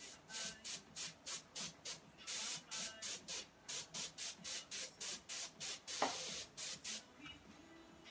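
Can of compressed air with a straw nozzle blowing wet alcohol ink across a canvas, hissing in quick short bursts about three a second with a couple of longer blasts, then stopping about seven seconds in. A sharp knock sounds about six seconds in.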